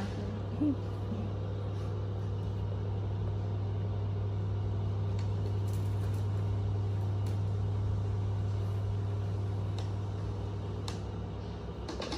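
A steady low hum with no change in level, with a few faint short clicks over it.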